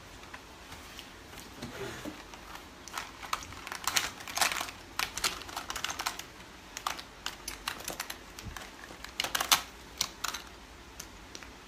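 Scattered, irregular light clicks and taps from small objects being handled close to the microphone.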